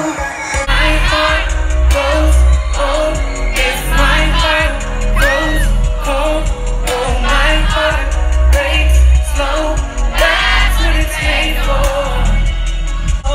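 Live pop music from a boy band on stage, recorded on a phone in the audience: male voices singing over a loud backing track with a heavy, booming bass.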